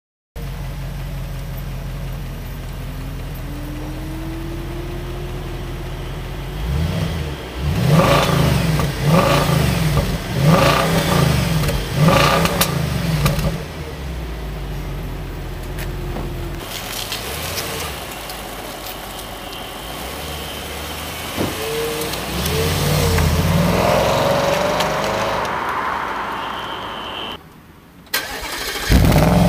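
Audi S5's 4.2-litre V8 idling through its quad exhausts, then blipped hard again and again from about seven seconds in, dropping back to idle between revs. A few lighter blips follow, then a longer hold at higher revs near the end, a brief drop-out and one more sharp rev.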